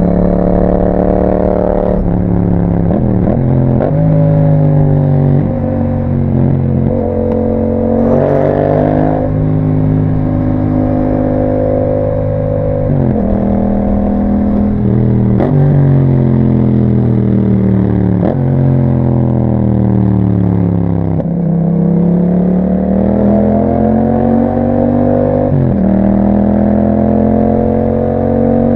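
A 2021 Yamaha MT-07's parallel-twin engine is running through an Akrapovič exhaust with a dB killer, under way on the road. Its pitch climbs and drops sharply several times as it is shifted up through the gears. About two-thirds of the way in it winds down, then pulls up through the revs again.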